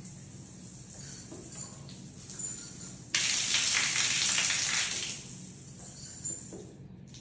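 Water spraying from a shower tower panel, a steady hiss that grows much louder for about two seconds in the middle and stops near the end.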